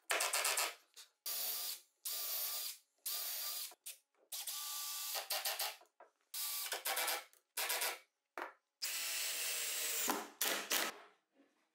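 Cordless drill/driver running in about ten short runs, stopping and starting, as it drills and drives screws into a plywood frame; one longer run near the end.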